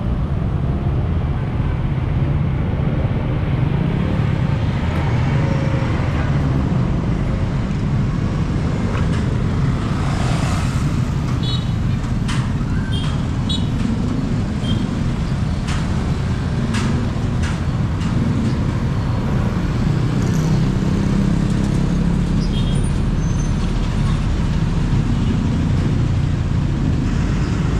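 Street traffic of motorcycles, cars and a bus passing close by, making a steady low engine rumble. A few short high squeaks and sharp clicks are scattered through it.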